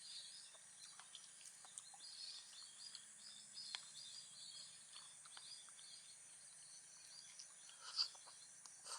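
Faint outdoor ambience: small birds chirping repeatedly over a steady high insect drone, with scattered soft clicks and one sharper click about eight seconds in.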